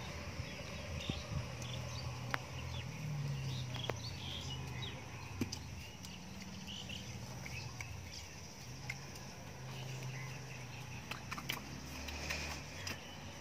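Outdoor rural ambience: scattered short bird chirps over a steady low hum, with a few faint clicks.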